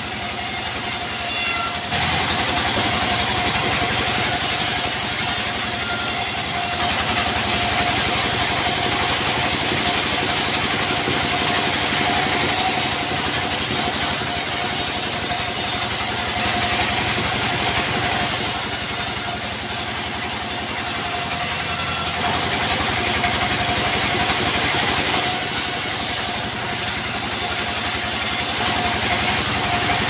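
Vertical bandsaw mill running with a steady whine while a log is fed through the blade in repeated cuts. Each time the blade is in the wood a sawing hiss rises for a few seconds and then drops back, five or six times over.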